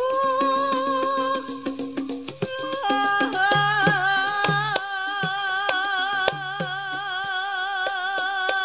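Javanese gamelan accompaniment for Banyumasan ebeg: a female singer holds long, wavering notes over struck bronze metallophone keys and drum strokes. Her held note steps up to a higher pitch about three seconds in.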